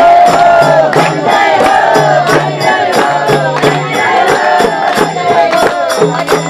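Devotional song with several voices singing a melody over percussion that keeps a quick, steady beat of about four strokes a second.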